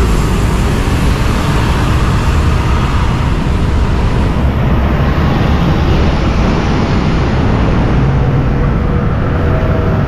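Steady road and traffic noise from a motorcycle riding along a busy city street, with cars and buses passing close by.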